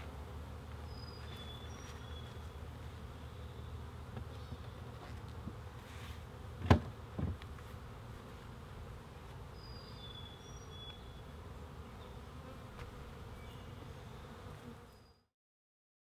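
Honeybees buzzing steadily around Langstroth beehives, with two sharp knocks a little past halfway as the wooden hive lid and boxes are handled.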